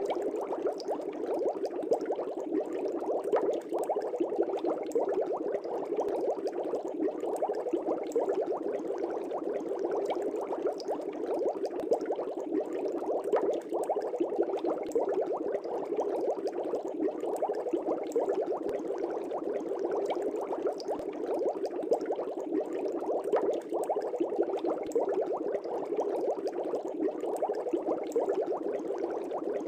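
Aquarium air bubbles rising and breaking at the water surface, a steady continuous bubbling and gurgling with many small pops.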